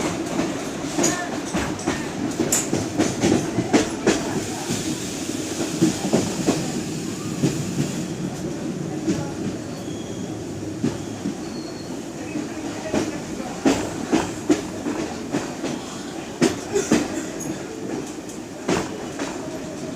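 Indian Railways 13018 Ganadevta Express running along the track, its wheels clattering over rail joints: irregular sharp clicks and knocks over a steady low rumble.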